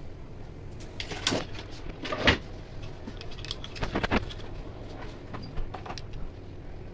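Sharp metallic clicks and knocks of machine parts being handled and fitted into a Juki overlock sewing machine's housing, scattered through the stretch, the loudest about two seconds in.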